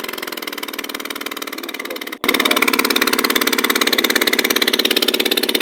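Suzuki K6A three-cylinder engine running with its number 2 spark plug removed, pulsing rapidly and evenly as it blows oil out of the open plug hole of the oil-fouled, misfiring cylinder. There is a brief break about two seconds in, after which it is louder.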